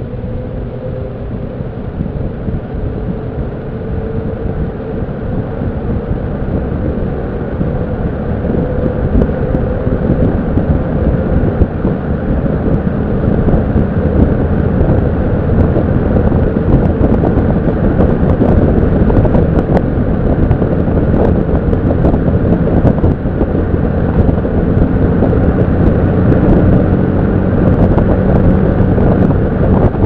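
Vintage General Electric F17W12 steel-bladed box fan running: a steady rush of air with a low motor hum beneath it. It grows gradually louder over roughly the first half, then holds steady, with no rattle or vibration.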